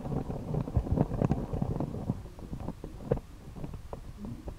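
Low rumble of close handling noise with irregular small clicks and taps, as metal tweezers work a fine wire end against a circuit board's solder pad. One sharper click comes about three seconds in.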